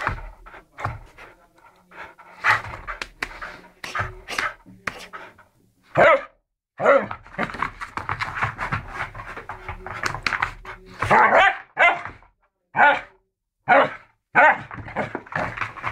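A dog in a post-bath frenzy, panting hard and rapidly, with several short, loud barks as it plays roughly at a hand.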